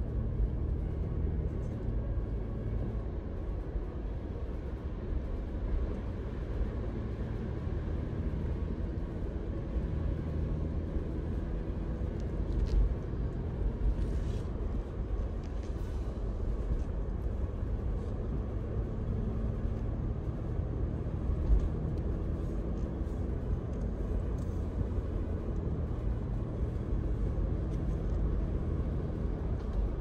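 Car driving at highway speed on a cleared road, heard from inside the cabin: a steady low rumble of tyres and engine, with a couple of brief knocks about 13 and 21 seconds in.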